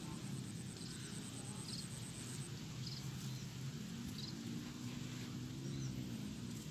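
Outdoor rice-paddy ambience: short high chirps about once a second over a steady low rumble, with a low hum that rises and falls in pitch for about two seconds starting four seconds in.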